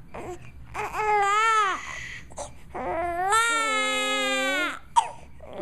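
Young infant crying: a short wail about a second in, then a longer, steadier wail from about three seconds in. A sharp click near the end.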